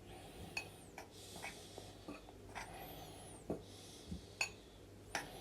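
A utensil stirring baking powder into flour in a bowl: faint, irregular clicks against the bowl with soft scraping between them.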